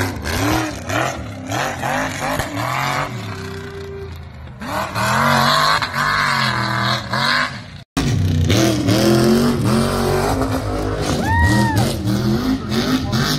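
Mud-bog truck engines revving hard, the pitch repeatedly climbing and dropping as the trucks are thrown around on the track. The sound cuts out for an instant about eight seconds in, then the revving carries on.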